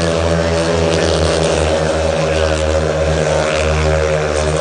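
Speedway motorcycles' 500cc single-cylinder methanol engines running loud and steady, with no clear revving up or down.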